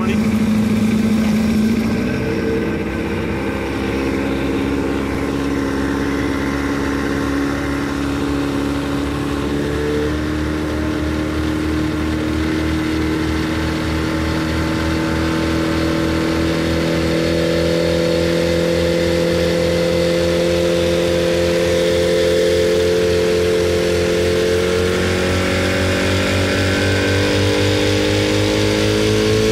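West Bend Tiger Shark 80 hp two-stroke outboard motor running steadily with the boat under way, over the rush of the wake. Its pitch climbs slowly through the middle stretch, then holds.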